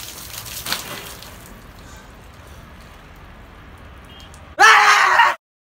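Water poured from above splashing onto a person and the concrete rooftop, dying down after about a second and a half to a faint steady hiss. Near the end comes a short, loud, high-pitched cry lasting under a second, and then all sound cuts off.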